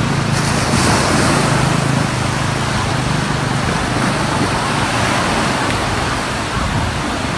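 Surf breaking and washing up a sandy beach: a steady rushing noise with a low, uneven rumble underneath.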